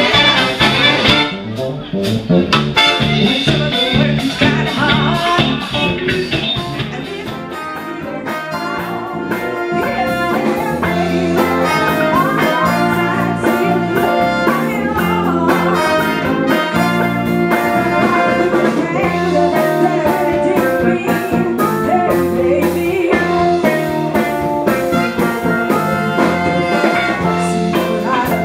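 Live showband playing an upbeat pop/soul cover with electric bass. The sound shifts briefly about two seconds in and again around eight seconds, as the montage cuts between performances.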